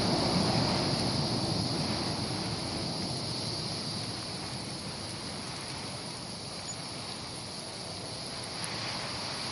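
A low, noisy rumble from a volcanic fissure eruption with wind buffeting the microphone, fading slowly over the first half and then holding steady.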